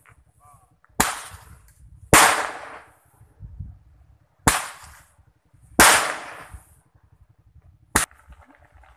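Five loud firecracker bangs, set off to scare away a wild elephant, each followed by a long echoing tail except the last, which is short and sharp.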